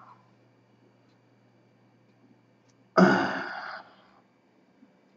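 A man's short, loud sigh about three seconds in, starting suddenly and fading within a second.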